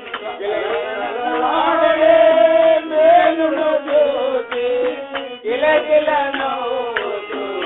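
Telugu devotional bhajan song: singing in long, wavering melodic phrases over instrumental accompaniment, with a short break and a sharp drum stroke about five and a half seconds in.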